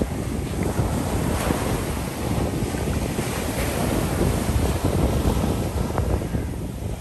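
Sea surf breaking and washing up the sand, with wind buffeting the microphone in a steady low rumble.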